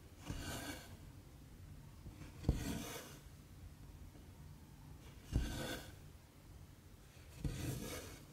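Needle and embroidery thread pulled through stamped cross-stitch fabric, four strokes about two seconds apart. Each is a sharp tap as the needle goes through, followed by a short swish of thread drawing through the cloth.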